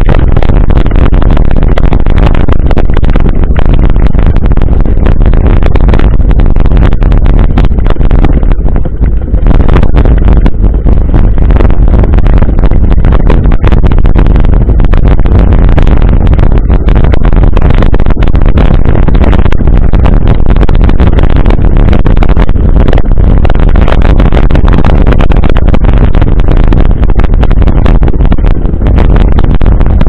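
Heavy wind buffeting on a camera microphone while riding a mountain bike: a loud, distorted, steady rumble, with a brief let-up about nine seconds in.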